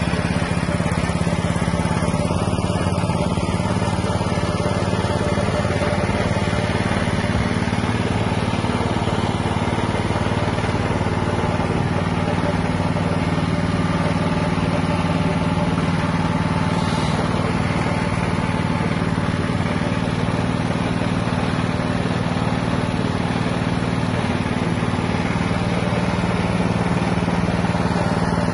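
Small single-cylinder petrol engine, Tesla-branded, running at a steady speed and driving a fish-pellet extruder through a belt and pulley.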